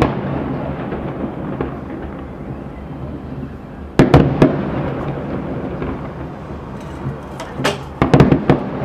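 Aerial fireworks shells bursting. A sharp bang comes about four seconds in, followed quickly by two more, then a rapid run of bangs near the end, with a steady rumble and crackle in between.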